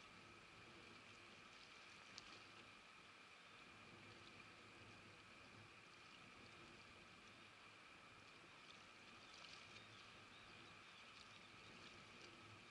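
Near silence: a faint steady background hiss with a faint steady hum, and a few faint ticks about two seconds in and again around nine to ten seconds.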